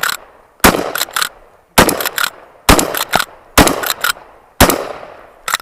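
A repeating shotgun fires five shots at about one a second while the shooter moves through the stage. Each report is followed by one or two shorter, sharp knocks, and a last short crack comes near the end.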